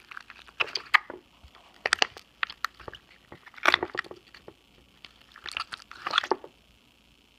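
Slime being squeezed and pressed by hand, giving wet squelches and crackly popping in four short bursts, the air pockets making fart-like noises. A steady high hiss from a poor microphone runs underneath.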